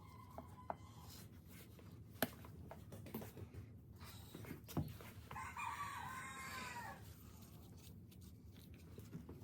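A rooster crowing once in the middle, one long call of about a second and a half. A few sharp clicks and knocks come before it, the loudest about two seconds in and just before the crow.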